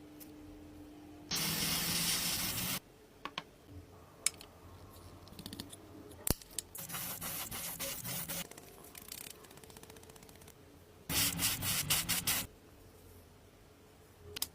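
Three bursts of hissing, rasping workshop-tool noise on car bodywork, each a second or two long, the last one pulsing rapidly. Quieter clicks and handling noises fall between the bursts.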